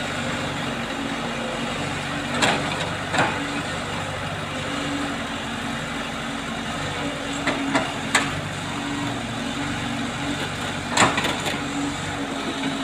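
Heavy diesel engine running steadily, with several sharp knocks and clanks a few seconds apart.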